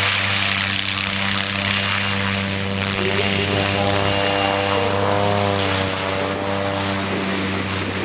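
Propeller aircraft's piston engine running at a steady pitch, a continuous drone with little change.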